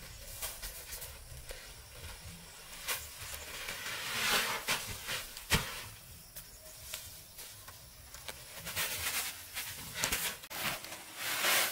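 Unhusked rice being scooped by hand and poured from a woven tray into a woven plastic sack. Rushes of rustling grain come about four seconds in and again near the end, with the crackle of the sack and dry straw, and one sharp knock about five and a half seconds in.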